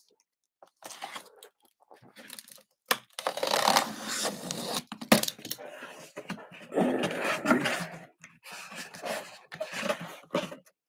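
Cardboard packaging being opened and handled by hand: intermittent rustling, tearing and scraping, with a few sharp knocks, the loudest about five seconds in.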